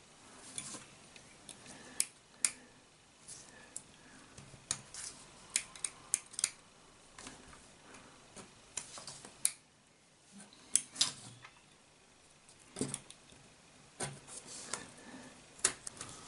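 Irregular sharp clicks, snaps and small scrapes of a blade prising and cutting the plastic casing off a SIM card.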